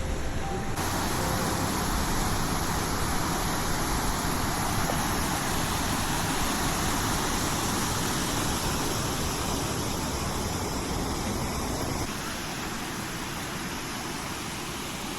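Steady rushing of water, a loud even hiss with no rhythm, that drops a little in level about twelve seconds in.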